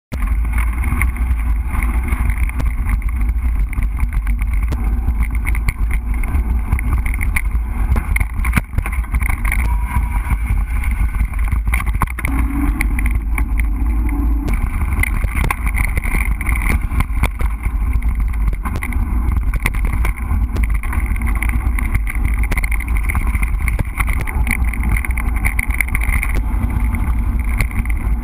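Wind rumbling loudly on the microphone of a camera mounted on a mountain bike riding a dirt and gravel track, with many small clicks and rattles as the bike jolts over the bumps.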